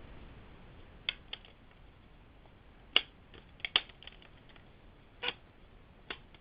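Hands handling the hard drive and plastic case of an open netbook: about eight sharp, light clicks and taps at uneven intervals, the loudest about three seconds in.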